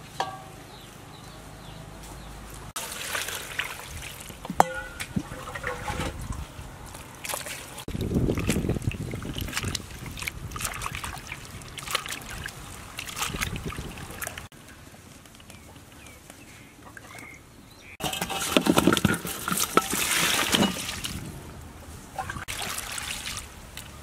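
Hands washing leafy greens in a large aluminium basin of water: water sloshing, splashing and trickling as the leaves are swished and lifted out, in several bursts, loudest in the last third.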